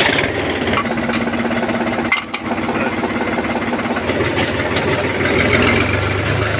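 New Holland tractor's diesel engine catching as it is started, then idling with a steady clatter. Its low drone grows louder about four seconds in.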